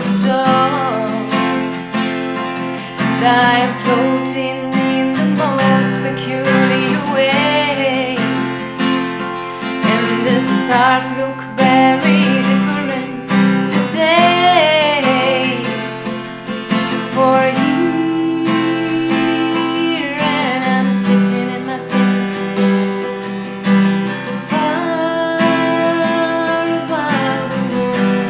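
Acoustic guitar accompanying a woman singing, her voice rising and wavering on held notes.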